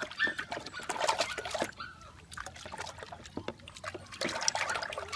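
Water splashing and sloshing in a plastic tub as hands scrub a puppy during its bath. It comes in two busy stretches, one in the first second and a half and another near the end, with quieter dribbling between.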